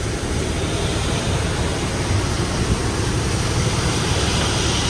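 Airbus A330 airliner noise heard from inside the cabin: a steady rush of jet engines and airflow over a low rumble, during the descent or landing phase.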